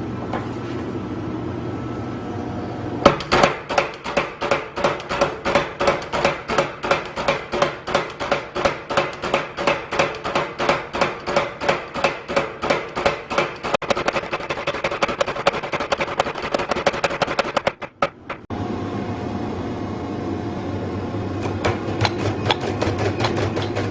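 Steady, regular hammer blows forging a steel billet, about three strikes a second with a ringing edge, running for some fifteen seconds. Before and after the hammering, a steady mechanical hum.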